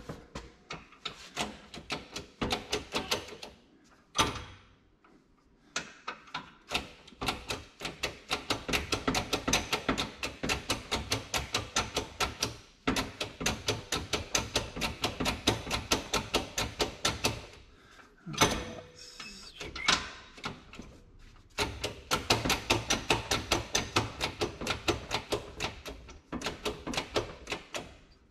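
Shop press pumping its ram down to press the belt pulley onto the water pump shaft: rapid, even mechanical clicking in several long runs, with two short pauses.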